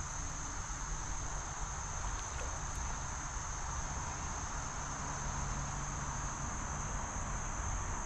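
Steady high-pitched insect chorus, an unbroken trill holding one pitch, over a low steady rumble.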